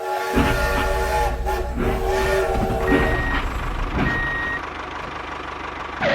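A vehicle's reversing alarm beeping twice, about a second apart, over a steady low engine rumble.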